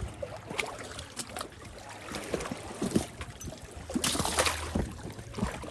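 Water lapping and splashing in small irregular slaps, with a louder rush of splashing about four seconds in, over a low steady rumble.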